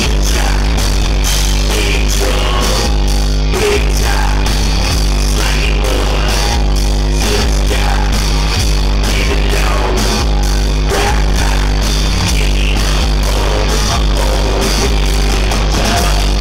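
A live rock band playing loud: electric guitars, bass and drum kit, with vocals over a steady beat and a heavy bass.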